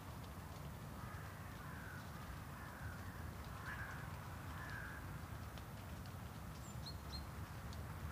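Crow cawing: about five harsh, falling calls in a row. Near the end a few short high chirps from a smaller bird follow, over a steady low rumble.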